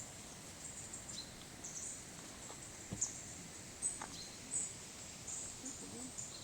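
Faint outdoor ambience: short, high-pitched chirps about once a second over a soft, steady hiss.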